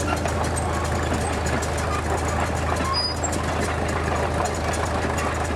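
Small Caterpillar crawler tractor driving along, its engine running at a steady low note under a continuous fine clatter of the steel tracks.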